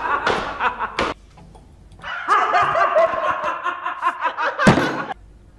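Two men laughing hard in choppy fits, breaking off for about a second near the start, then laughing again until it stops abruptly near the end.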